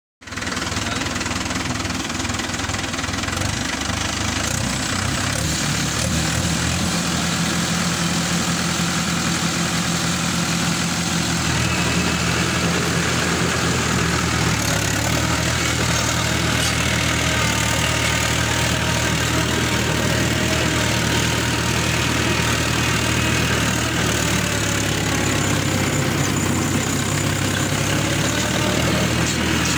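Tractor diesel engine running under way as the tractor works a field, pulling a tillage implement through dry soil. The engine note changes about eleven seconds in.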